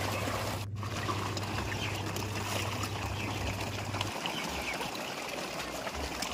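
Water splashing and churning as a dense crowd of fish thrash at the surface for thrown feed pellets, with a low steady hum that stops about four seconds in.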